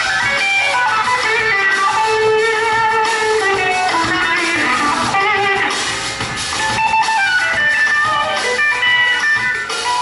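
Electric guitar played live through an amplifier, a lead line of many quick notes moving up and down.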